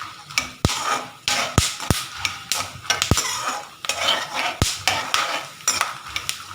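A metal spoon scraping and clinking against a pan as peanuts are stirred while they roast on a low flame, with a few sharper knocks of the spoon on the pan's side.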